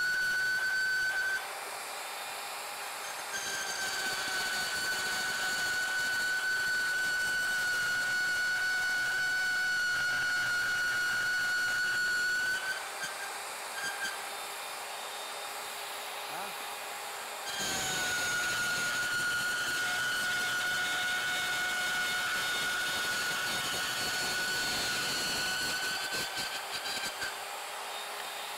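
Harbor Freight Bauer portable band saw running and cutting quarter-inch steel flat bar: a steady high whine over a hiss. The whine drops out twice, about a second in and again around the middle, as the blade leaves and re-enters the cut.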